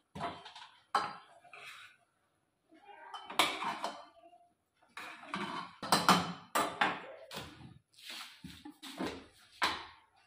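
Ladle stirring chunks of pumpkin in a pressure-cooker pot, with irregular clanks and scrapes against the pot that come thicker in the second half.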